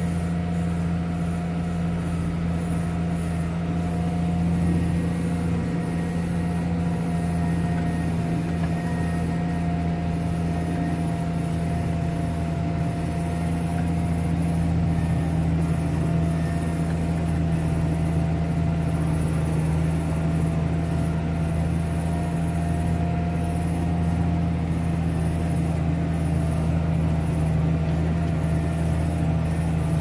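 Farm tractor's engine running with a steady drone, heard from inside the cab, while its front-end loader pushes snow along the road.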